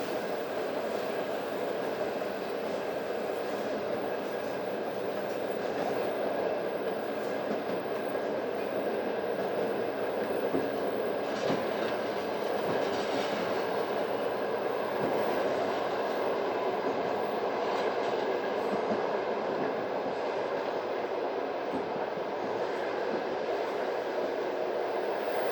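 Passenger train carriage running on track: a steady rumble of wheels on rail, with a few separate clicks of the wheels over rail joints.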